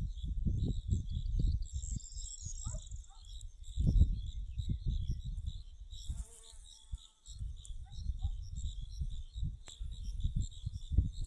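Insects chirping in a steady, high, pulsing chorus, over low rumbling gusts that come and go.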